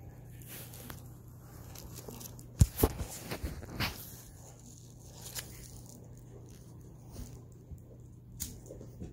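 Close handling noise as a cat brings a toy to a person's lap and the toy is taken from it: rustling, with a quick run of knocks and scrapes about three seconds in and a few soft ticks later. A steady low hum runs underneath.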